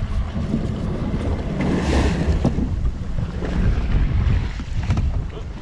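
Wind buffeting the microphone over choppy water, with waves lapping and splashing against a small boat's hull.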